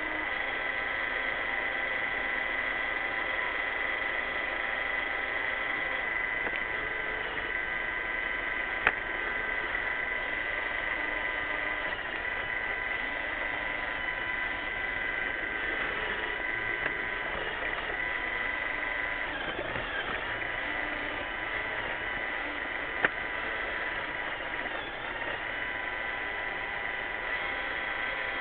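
iRobot Roomba 600-series robot vacuum running, a steady whine of its motors and brushes with several steady tones. A sharp click sounds twice, about nine seconds in and near the end.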